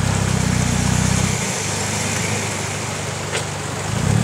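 4x4 pickup's engine running at low revs under light throttle as the truck is winched up a stream bank, louder for the first second and a half and again near the end, over the steady hiss of flowing water.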